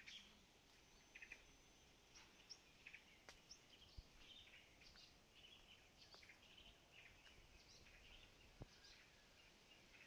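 Faint birdsong: many short, high chirps and trills through a quiet background, with a few soft clicks.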